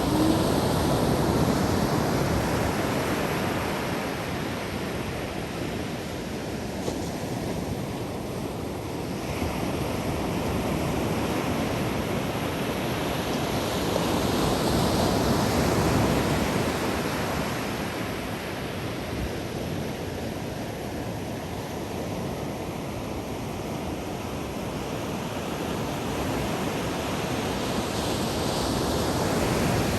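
Ocean surf breaking and washing up the beach in a continuous rush. It swells louder with the bigger waves, near the start, about halfway through and near the end.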